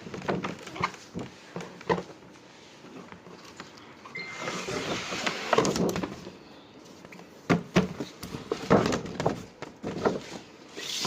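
Packaging being handled and opened: rustling of paper or wrapping about four seconds in, with scattered knocks and clicks from the box and its contents, several close together near the end.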